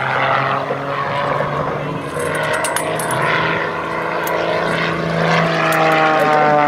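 Pitts S2C aerobatic biplane's six-cylinder Lycoming engine and propeller droning in flight, a steady buzz that grows louder and falls in pitch over the last couple of seconds.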